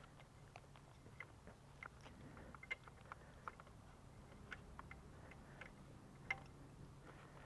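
Faint, irregular small clicks and ticks of parts, plastic and wiring being handled during scooter reassembly, over a faint steady low hum.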